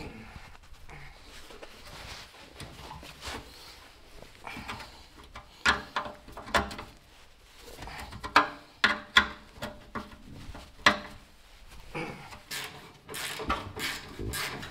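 A hand wrench working nuts and bolts on a Triumph TR3 engine: scattered metallic clinks and knocks as the tool is fitted and turned against the metal parts, then a quicker run of clicks near the end.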